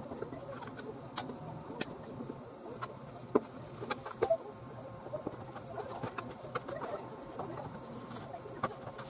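Kitchen knife cutting bread dough into pieces, the blade clicking sharply against the plastic cutting sheet a number of times, over a steady low hum and a faint wavering murmur.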